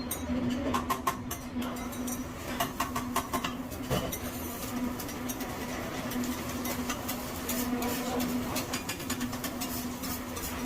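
Hibachi chef's metal spatulas clicking and scraping on the steel griddle in quick runs, busiest in the first few seconds and again near the end, over a steady low hum.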